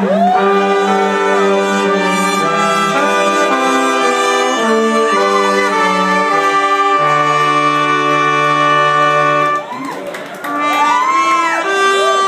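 Horn section of a live funk band, trombone among them, playing long held chords that change every second or so, with a singer's voice gliding over them near the start and again near the end. The chords break off briefly about ten seconds in, then come back in.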